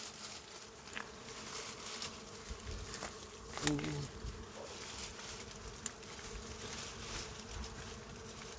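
Wild honeybees buzzing around their comb as it is disturbed by hand: a steady hum, with a few sharp snaps and rustles from the branches.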